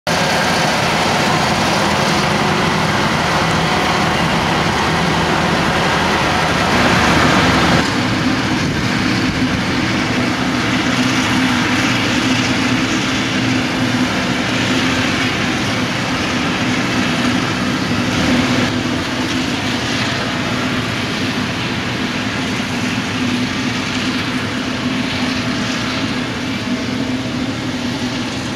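Claas Jaguar 970 self-propelled forage harvester at work chopping maize and blowing it into a trailer, with the tractor running alongside: a loud, steady machine drone with a constant low hum. The sound shifts slightly about eight seconds in.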